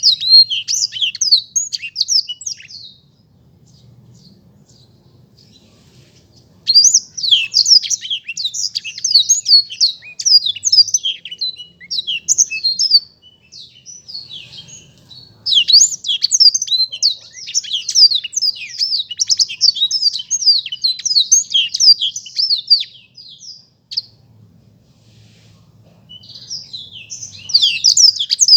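Black-throated canary (blackthroat) singing a fast, high, twittering song in long bouts of rapid chirps, with pauses of a few seconds between bouts.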